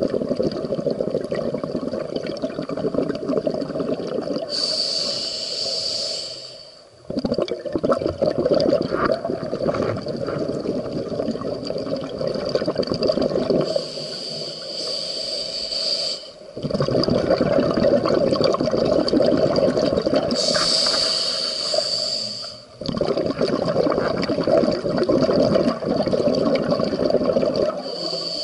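Scuba diver breathing through a regulator underwater: four short hissing inhalations, about every seven seconds, each followed by several seconds of bubbling exhalation.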